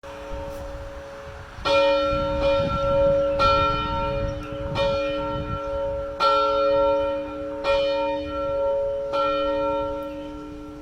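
A single church bell ringing: the hum of an earlier stroke still sounding, then six even strokes about a second and a half apart, each leaving a long ringing hum that carries over into the next.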